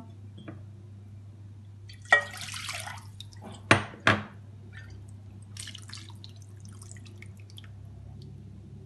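Thin tomato sauce poured from a glass bowl into a baking dish: a short splash about two seconds in, two sharp knocks a moment later, then scattered small drips and ticks. A faint steady low hum underneath.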